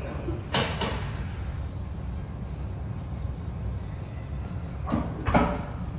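Steady low rumble of gym room ambience. Two pairs of short, sharp sounds cut through it, one pair just after the start and one about five seconds in.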